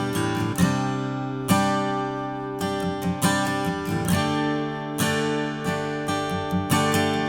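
Sigma DM acoustic guitar playing chords, each strummed and left to ring. A new chord comes in about once a second.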